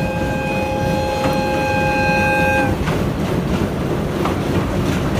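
Electric locomotive's low-pitched air horn sounding, held and then cut off about two and a half seconds in, over the running rumble of the old passenger coach. Wheels click over the rail joints after the horn stops.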